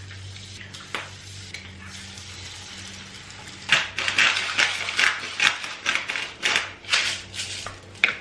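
Eggs frying faintly in a pan under a steady low hum. About four seconds in, a hand sea-salt grinder is twisted over the pan, giving a quick string of short, crunching grinds.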